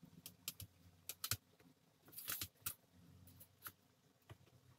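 Faint, scattered metallic clicks and light rubbing as a hand spreads ghee over a stainless steel plate to grease it.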